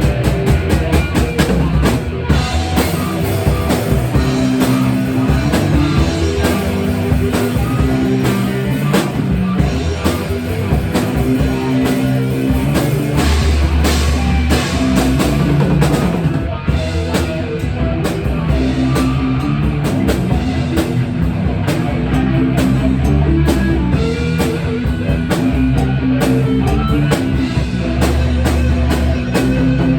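Loud rock music with drum kit, bass and guitar playing steadily.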